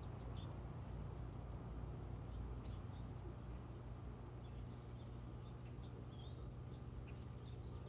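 Steady low hum with a few faint, short high chirps and ticks about halfway through.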